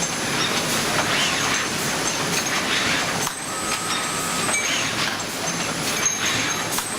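Automated bearing-ring crack and grinder-burn inspection machine running: steady machinery noise with hissing and a few short knocks and clicks as rings are handled.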